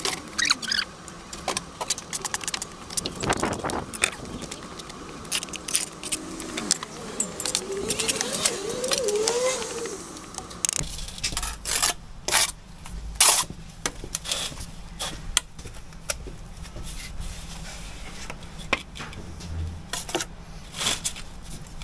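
Bricklaying trowel clinking and scraping against engineering bricks and mortar, with many sharp taps and knocks as bricks are bedded and tapped down. A wavering tone sits in the background during the first half.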